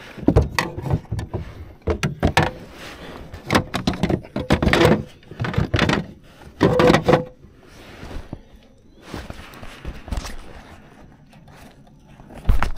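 A largemouth bass thrashing against a plastic measuring board and the kayak deck: a dense run of knocks, thumps and rattles that eases off past the middle, then a few more knocks and a loud thump near the end.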